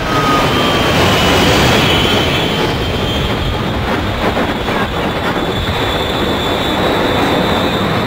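Aircraft engine noise: a loud, steady roar with a high whine that slowly rises in pitch, and a lower tone that falls away near the start.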